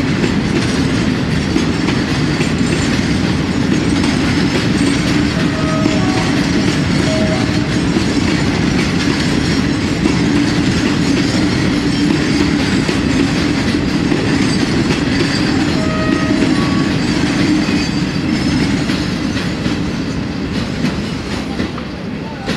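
Freight train wagons rolling past close by, a steady loud clatter of wheels on rails. It begins to fade near the end as the last wagons go by.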